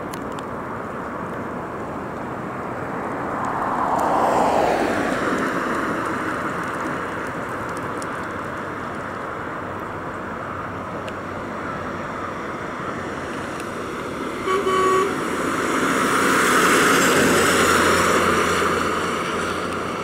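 A 1975 AMC Pacer driving past, its engine and tyre noise swelling and fading twice, the first pass with a falling pitch. A car horn gives one short toot about three quarters of the way through.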